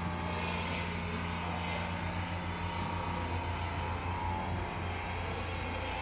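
Empty pan-type concrete mixer's electric drive running with a steady hum while its pan is tilted over by the actuator.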